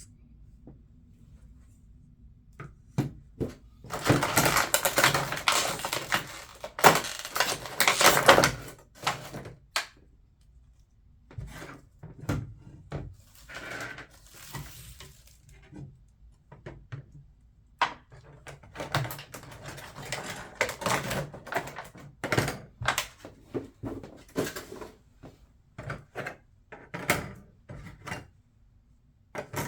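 Unboxing of a scale model airliner: the parts and packaging are handled, giving scattered light clicks and knocks. A dense stretch of rustling lasts about five seconds, starting about four seconds in.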